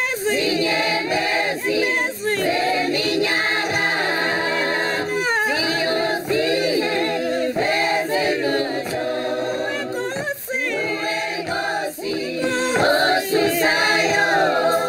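A choir singing without instruments, in short phrases one after another.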